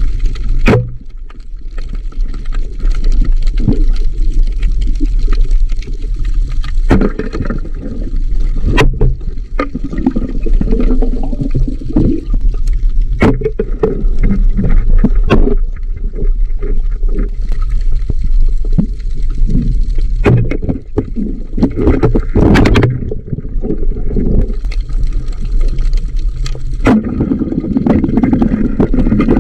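Underwater sound picked up through a camera housing: a steady low rumble of moving water with gurgling, and sharp knocks and clicks scattered throughout.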